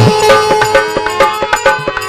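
Harmonium holding sustained notes over a fast hand-drum beat, an instrumental passage of a Rajasthani folk bhajan.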